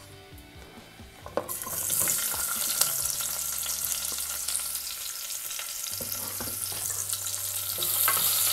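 Chopped onions hitting hot oil in a pressure cooker and frying: a sizzle starts suddenly about a second and a half in and builds, with a spoon stirring and clicking against the pan.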